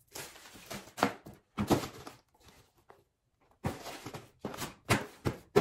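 Cardboard shoebox being handled and opened: sharp knocks and thunks of the box and lid, with rustling of paper between them, and a short pause about halfway through.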